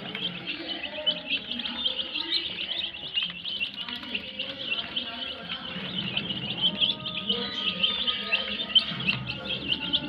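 A crowd of young domestic chicks peeping without a break, many short, high calls overlapping.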